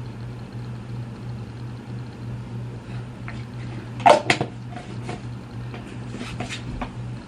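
A few sharp knocks and clatters, loudest about four seconds in and lighter ones after, like small objects being handled and set down at a drawer or cabinet, over a steady low hum.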